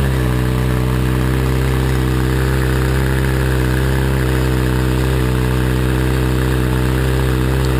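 2012 Kawasaki Ninja ZX-6R's inline-four idling steadily through a Competition Werkes slip-on exhaust with the baffle in.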